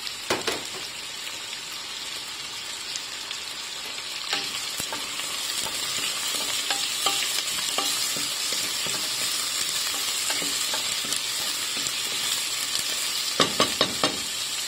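Chopped onions and garlic sizzling in hot olive oil in a stainless steel pan, a steady hiss that grows somewhat louder after about five seconds. A wooden spatula stirs them, with scattered light clicks and a quick run of knocks against the pan near the end.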